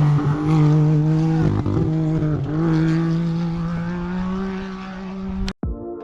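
Rally car engine running hard at steady high revs, the note dipping briefly twice and fading as the car pulls away. It cuts off abruptly near the end and steady electronic music begins.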